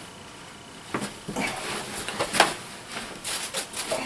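Scattered knocks and scuffs of a person shifting and getting up in a small room with a plywood floor, the sharpest knock about two and a half seconds in.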